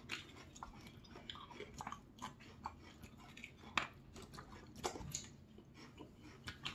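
Chewing and biting sounds of people eating noodles in black bean sauce and fried pork: soft wet mouth sounds and small clicks, with two sharper smacks about four and five seconds in.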